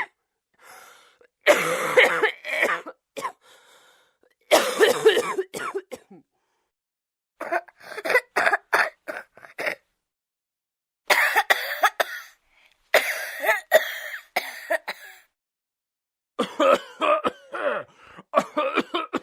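A person coughing in about six fits, several sharp, raspy coughs in each, mixed with throat clearing, with brief silences between the fits.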